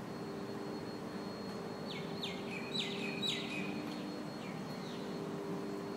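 Steady machine hum with a faint high whine, and a bird giving a quick run of short falling chirps about two seconds in.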